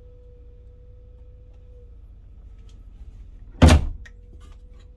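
A cabinet door shutting with one loud thunk about three and a half seconds in, over a faint steady hum.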